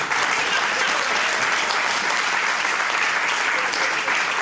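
Audience applauding steadily after a punchline.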